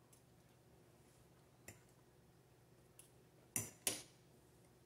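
A few sparse clicks of a metal fork against a plate as a bite is taken, in a quiet room; the two loudest come close together about three and a half seconds in.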